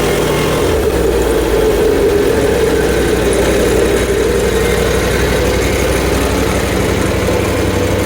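Portable band sawmill running steadily as it saws through a log: the mill's small gasoline engine hums under load at a constant speed.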